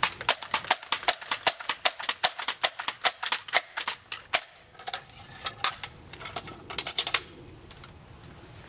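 Daisy Powerline 35 multi-pump air rifle being pumped: a fast run of clicks and clacks from the pump lever for about four and a half seconds, then scattered clicks that stop about seven seconds in.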